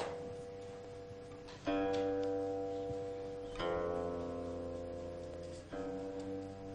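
Slow background music on a plucked string instrument: a new note or chord sounds about every two seconds, three times, each ringing on and fading.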